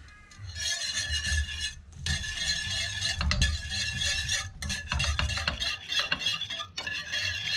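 Wire balloon whisk beating a cream sauce in a stainless steel frying pan, its wires scraping and clicking against the pan in quick, continuous strokes, with a brief pause about two seconds in. This is cold butter being whisked into the reduced cream a few knobs at a time to thicken the sauce.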